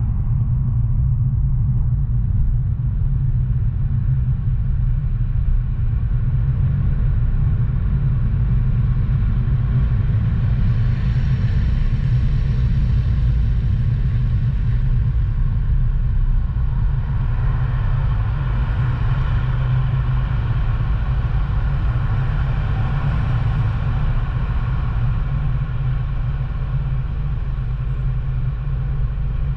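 Steady low rumble of a car driving, road and engine noise, with the hiss of tyres on the road growing brighter for a while in the middle.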